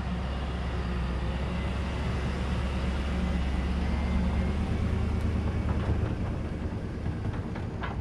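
Pickup truck driving past towing a tandem-axle utility trailer loaded with IBC totes: a steady low engine drone with tyre noise, and a few rattling clicks near the end.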